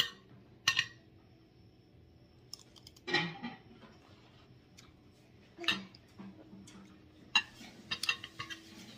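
A metal fork clinking and scraping against a plate while scooping rice: a few short, separate clicks, with a quick cluster of them near the end.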